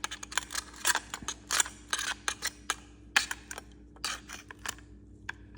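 Irregular sharp clicks and taps, several a second, of an oyster shell being handled and knocking against hard surfaces.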